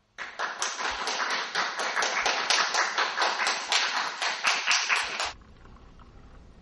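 A small audience clapping in applause: a quick run of distinct hand claps that cuts off suddenly about five seconds in, leaving faint room noise.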